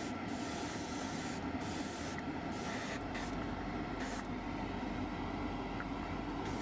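Airbrush spraying primer in light misting passes: a steady hiss of air and paint that drops out for moments several times and is weaker in the last couple of seconds.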